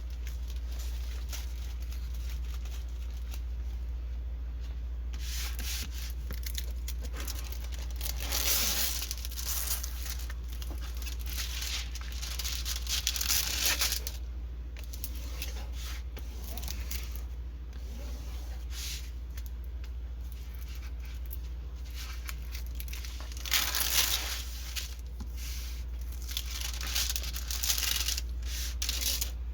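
Plastic packaging of diamond painting kits rustling and crinkling as it is handled, in several louder bursts, over a steady low hum.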